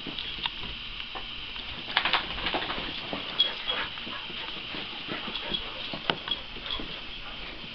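Two dogs play-wrestling on carpet: irregular scuffling, bumps and light thuds of paws and bodies.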